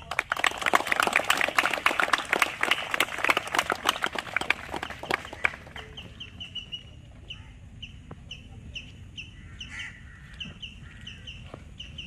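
A crowd clapping for about five seconds, then a bird calling over and over in short high chirps.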